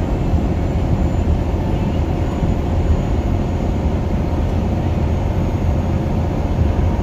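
Steady engine and road-noise drone inside a truck cab cruising at highway speed, deep and even, with a faint steady hum above it.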